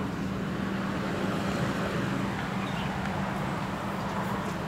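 Steady background road traffic noise with a constant low hum underneath.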